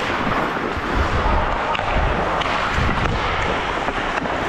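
Ice hockey skates scraping and carving across rink ice while a skater moves up the ice, with steady wind rush on a helmet-mounted action camera's microphone. A few sharp clicks and low thuds sound over it.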